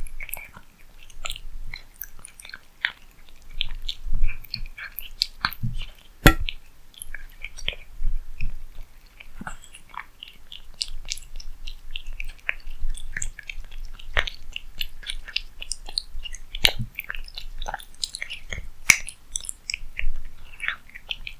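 A cat eating close to the microphone: irregular clicky chewing and biting, with a sharp louder crunch about six seconds in.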